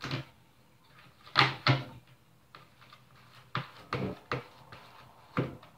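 A utensil knocking and scraping against a plastic tub as slime is stirred, with about eight irregular sharp taps.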